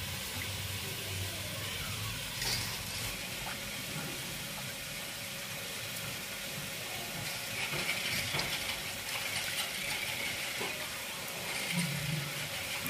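Snail shells being handled in a steel bowl of water: scattered faint clicks over a steady background hiss.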